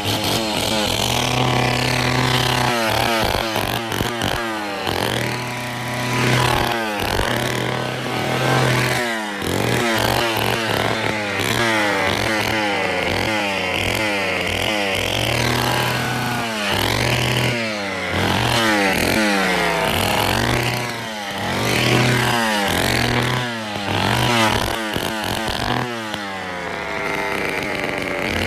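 1974 Poulan 245A two-stroke chainsaw running, blipped up to high revs in short bursts and dropped back to idle over and over, the pitch climbing and falling each time. The engine is running clean, which the owner calls perfect.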